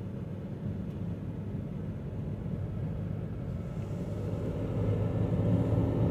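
Toyota Avensis III 1.8 CVT driving, a low steady hum that grows louder about halfway through. The owner asks whether the humming comes from the CVT transmission.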